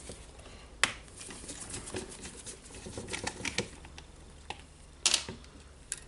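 Carbon-brush holder caps of a Makita router being unscrewed and the brushes taken out by hand: scattered small clicks and scrapes of a screwdriver and plastic parts, with a sharp click about a second in and a louder clatter about five seconds in.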